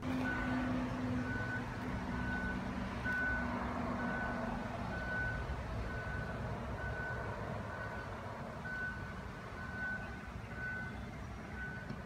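Truck's reversing alarm beeping steadily, about one high beep a second, over the low rumble of its running engine, whose hum fades about halfway through.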